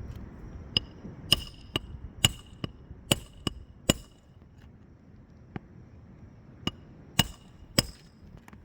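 Hand hammer driving roofing nails into shingles during a roof repair. There are about eight quick blows, each with a short metallic ring, then a pause, then four more blows spaced farther apart.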